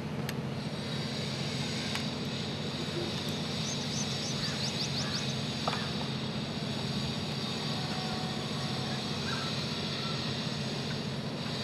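Steady outdoor background of low hum and hiss, with a few faint clicks as the GPS receiver's power and antenna cables are handled and plugged in.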